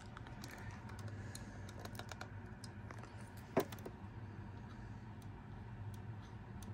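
Faint, scattered light clicks and taps of metal tweezers against the plastic belt drive and pulleys of an opened portable cassette player, with one sharper click a little past halfway. A low steady hum runs underneath.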